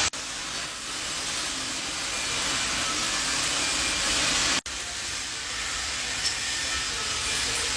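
Welding arcs hissing steadily in a busy welding shop during competition welding, with a brief dropout a little over halfway through.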